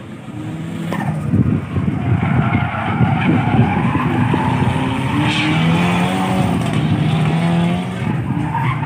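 Nissan Silvia S15 drifting: its engine revs hard while the tyres squeal and skid on the tarmac, getting louder about a second in.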